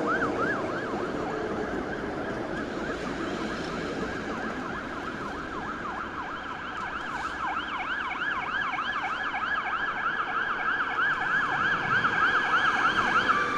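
Ambulance siren in fast yelp mode, rising and falling several times a second. A second, higher-pitched yelping siren joins about three seconds in. Both sound over a background of traffic noise and grow louder near the end as the ambulance approaches.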